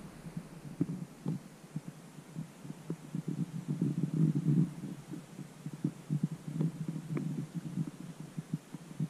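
Camera handling noise: irregular, muffled low thumps and rubbing on the microphone, busiest and loudest around the middle.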